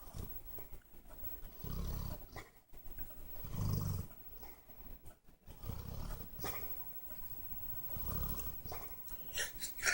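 Dog snoring in its sleep, deep snores coming about every two seconds. A few short clicks sound near the end.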